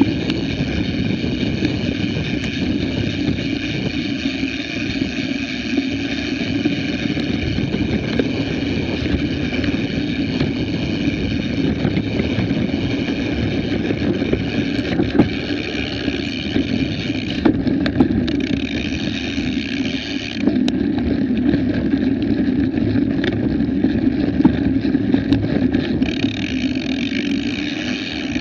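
Rumble of a mountain bike rolling fast over a dirt singletrack with wind rushing over the action camera's microphone. A steady high buzz runs above it and cuts out twice, briefly at first and then for several seconds.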